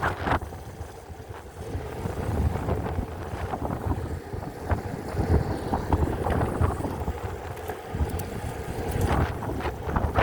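Wind buffeting the microphone in gusts, an uneven low rumble that swells and eases.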